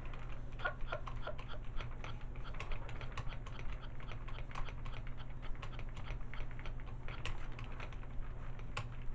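Fisher-Price Sing & Spin Pablo toy on weak batteries: a run of light, irregular clicks and ticks from its mechanism as it is handled, over a steady low hum.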